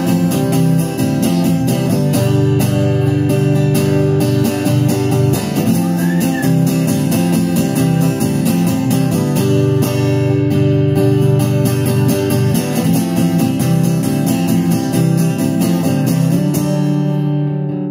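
Acoustic guitar strummed steadily and fast through an instrumental break with no vocals. Just before the end the strumming thins out.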